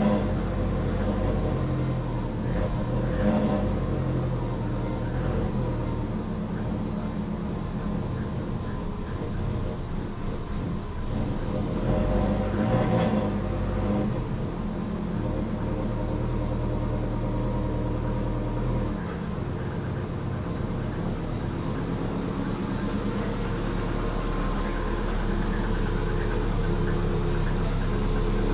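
Twin-turbo Subaru Forester's flat-four engine running, with a couple of short revs in the first half and then a steady idle.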